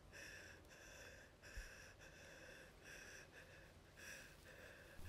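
Faint, quick panting breaths, about three a second: a woman breathing hard in fear.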